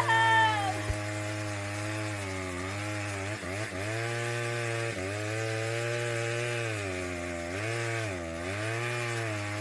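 Chainsaw running steadily, its engine note sagging and recovering a few times as it bites into a cut.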